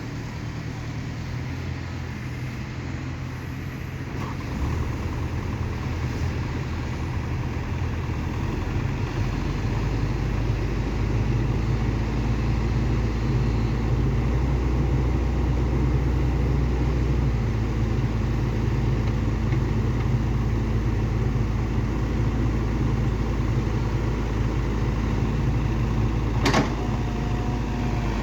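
Excavator's diesel engine running, growing louder over the first ten seconds or so, then holding at a steady heavy drone. A single sharp click near the end.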